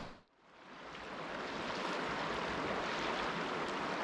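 Rushing water of a small river rapids, a steady even rush that fades in over about a second after a brief dip to silence near the start.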